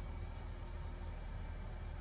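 Nissan Juke's engine idling, a steady low hum heard from inside the cabin.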